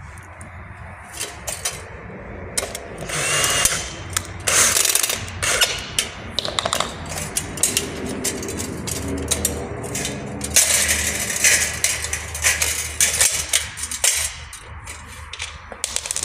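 Thin galvanized steel drywall track being handled and bent by hand, with many sharp metallic clicks and rattles, and short runs of a cordless drill driver driving screws into the steel.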